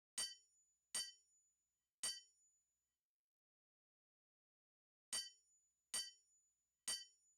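Hammer blows on metal at the anvil, each a sharp strike that rings briefly: three strikes about a second apart, a pause of about three seconds, then three more.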